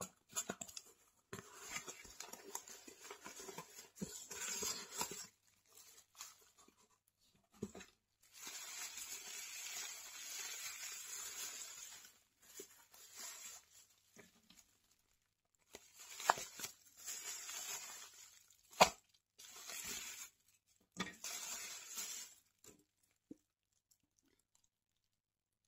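Cardboard box and plastic bubble wrap being handled: crinkling and rustling in bursts with pauses, the longest run near the middle as the bubble wrap is pulled out, with a few sharp clicks, the loudest a little past two-thirds of the way through.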